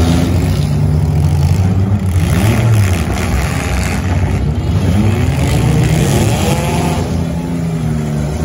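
Several demolition derby cars' engines running together and revving, their pitch rising and falling.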